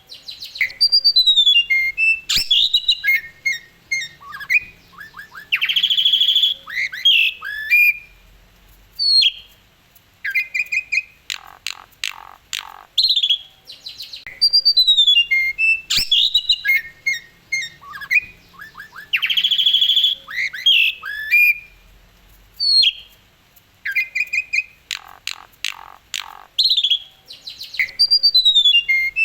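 Asian pied starling singing a varied, energetic song of whistles, quick chattering runs and sharp harsh notes. The same sequence of phrases comes round again about every 13 seconds, as in a looped recording.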